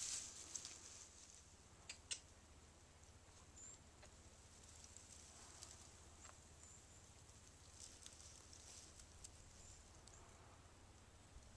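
Near silence with faint rustling and crackling of grass as a North American porcupine shuffles and forages through it, with a single sharp click about two seconds in.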